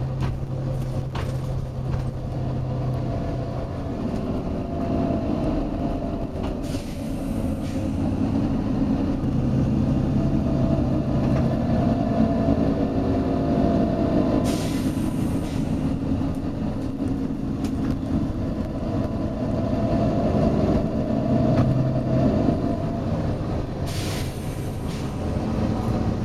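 Volvo B9TL double-decker bus engine running, its pitch rising several times as the bus accelerates. Three short bursts of air hiss from the bus's compressed-air system break in over it.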